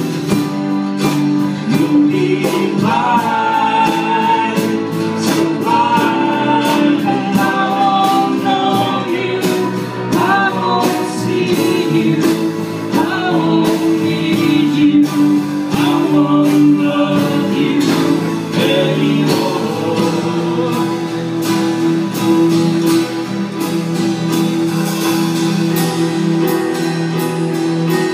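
Live acoustic folk band: several strummed acoustic guitars with voices singing together, the singing dropping out about two-thirds of the way through while the guitars carry on.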